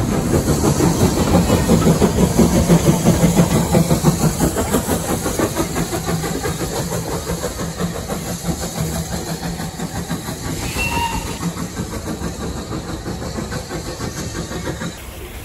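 Small steam tank engine pulling away with a train of carriages, its exhaust beating in a fast, loud rhythm that gradually fades as it draws off down the line.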